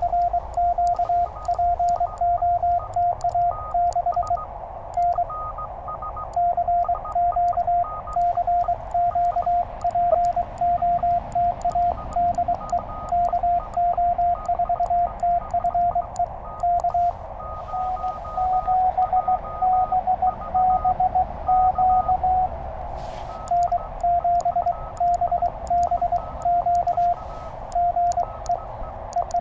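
Morse code (CW) from a Penntek TR-35 QRP transceiver: a single steady tone keyed on and off in dots and dashes as a contact is exchanged. For a few seconds in the middle, a tone of slightly higher pitch does the sending.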